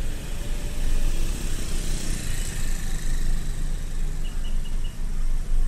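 Steady road noise from a ride through town traffic: low wind rumble on the microphone over engine and tyre noise. Four short high beeps about four seconds in.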